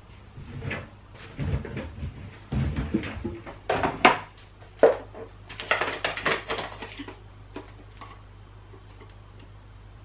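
Knocks and clatter of a washing machine being loaded, its door and drawer opened and shut, with the sharpest knocks about four and five seconds in. A low steady hum sets in after that.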